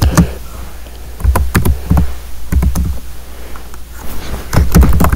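Irregular taps and soft knocks, several a second in short runs, of fingers typing on a phone's touchscreen, over a steady low hum.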